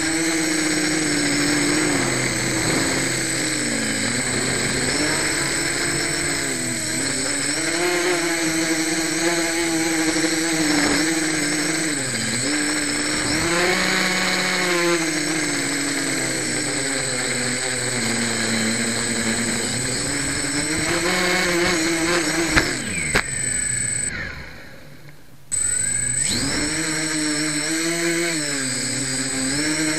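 Electric motors and unbalanced propellers of a home-built quadcopter whining close up, the pitch rising and falling as the throttle changes. Near the end come a couple of knocks, the motors wind down and stay quiet for about two seconds, then come back on abruptly.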